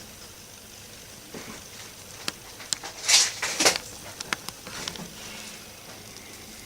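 Small clicks and taps of tools on a wire joint, with two short sizzling hisses a little past the middle as a soldering iron is put to the joint.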